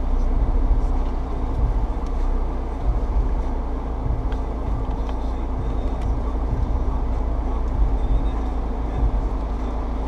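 Jeep Wrangler JL's engine running at low revs: a steady low rumble with an even hum through it and a few faint scattered clicks.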